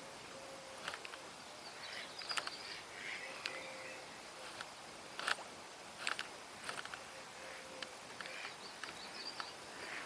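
Faint outdoor ambience with scattered light clicks and taps, likely from handling fishing gear, and a few brief faint chirps.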